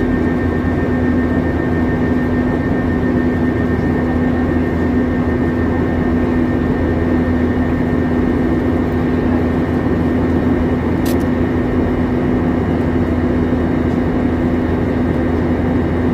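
Steady cabin noise of an Airbus A321 in flight after takeoff, its IAE V2533-A5 turbofan engines running with a constant low hum and a fainter high whine. A brief click about eleven seconds in.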